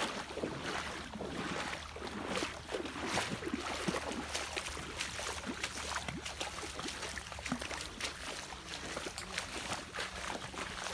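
Feet wading through shallow water, with uneven splashes at each step.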